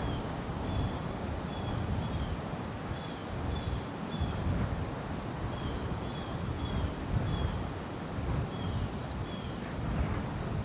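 Wind gusting over the microphone in an uneven low rumble. A steady series of short, high chirps repeats about once a second throughout.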